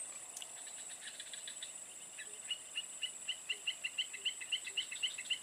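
Outdoor wildlife sounds: a steady high-pitched insect drone, and from about two seconds in a fast run of short repeated chirps, about five a second, growing louder.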